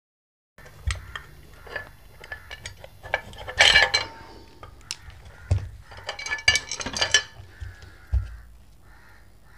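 Irregular clicks, taps and clinks of tools and the opened LED street light's metal and plastic parts being handled and set down, beginning about half a second in. The loudest clatter comes about three and a half seconds in and again around six to seven seconds in.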